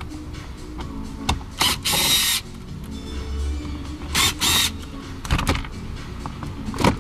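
Background music with scattered clicks and a few short bursts of hissing noise, the longest about two seconds in and another just past four seconds.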